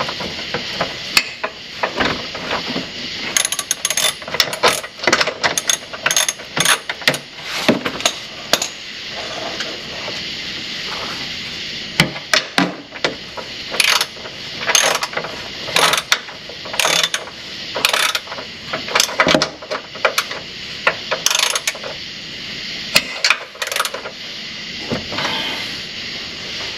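Hand ratchet wrench clicking in short runs of strokes as a bolt is worked under the truck, with pauses between the runs.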